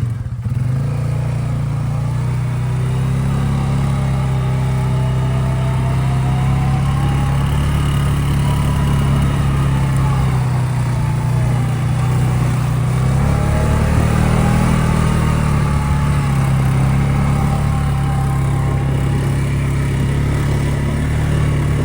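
Polaris Sportsman ATV engine running under way, a steady low hum with a fainter whine that rises and falls as the throttle changes.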